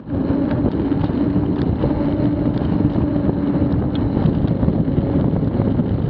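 Wind buffeting the microphone of a bike-mounted camera on a fast descent, over the steady hum of a knobby mountain-bike tyre rolling on tarmac. A few faint clicks from the bike.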